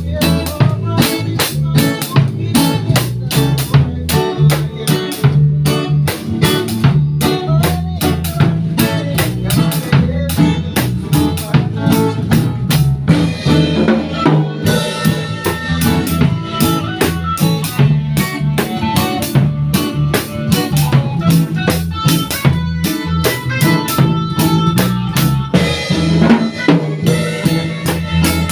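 A band playing at a sound check: a drum kit keeps a steady beat of snare and kick strokes over a bass line.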